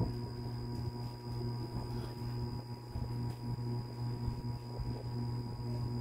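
Small 8-inch electric fan running with a steady hum and an even whoosh of air, with faint light ticks of handling over it.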